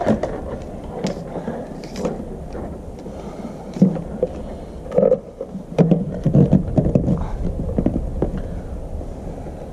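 Electrical wires rustling and scraping as they are fed through PVC conduit, and the conduit knocking against a plastic junction box, with scattered light clicks and a few louder bumps over a steady low rumble.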